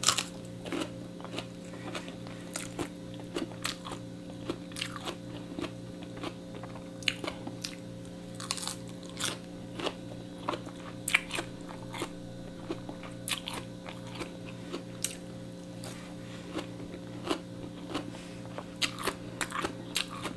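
Close-up mouth sounds of a person biting and chewing crisp lettuce leaves and a toasted sandwich: irregular crunches throughout, over a steady low hum.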